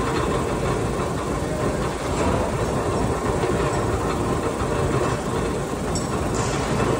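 Steady rumble of running heavy machinery, with a couple of short metallic ticks about six seconds in.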